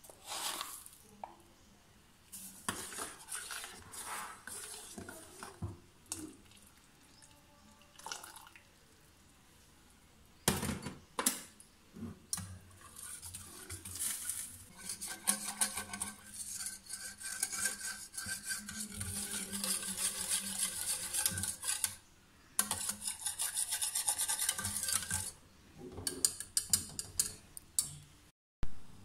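Wire whisk beating a creamy milk mixture in a stainless steel saucepan, its wires rattling and scraping against the metal pan in quick continuous strokes. Before the whisking settles in there are scattered clinks and taps.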